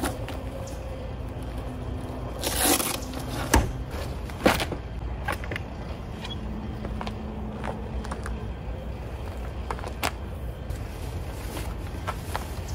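A car-top awning being handled on a roof rack. Its fabric cover comes off with a noisy rip about two and a half seconds in, a few sharp knocks and clicks follow on the aluminium case, and its metal side arms are slid out, all over a steady low rumble.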